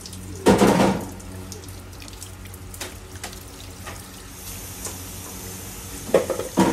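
Tap water running into a sink as freshly gutted fish are rinsed, with a loud knock about half a second in and two more shortly before the end.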